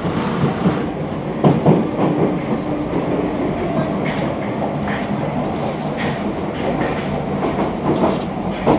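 MF77 Paris Métro train running, heard from inside the car: a steady rumble with a low humming tone, and irregular sharp clacks of the steel wheels over rail joints. The clacks come thickest about a second and a half in and again near the end.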